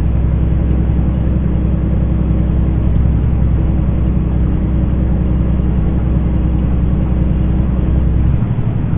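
Semi truck's diesel engine pulling steadily under heavy load at low speed on a climb, a deep steady drone. About eight seconds in the lowest part of the note falls away and it gets a little quieter.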